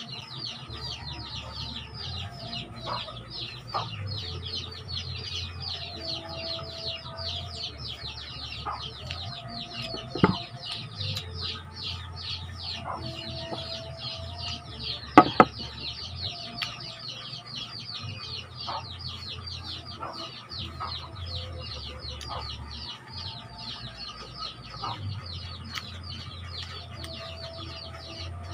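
Chickens clucking in short calls against a steady, rapid high-pitched chirping, with a sharp knock about ten seconds in and a louder double knock about fifteen seconds in.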